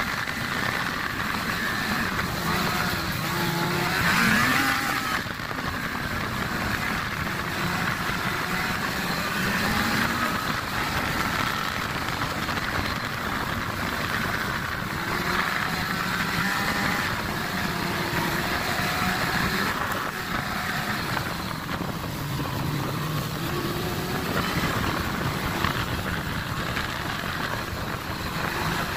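Snowmobile engine running at trail speed under the rider, its pitch wavering with the throttle and rising briefly about four seconds in, over a steady rush of noise.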